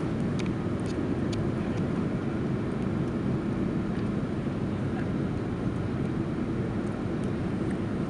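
Steady low rumble of an Airbus A330-200's engines and slipstream heard inside the passenger cabin during the descent to land, with a few faint ticks over it.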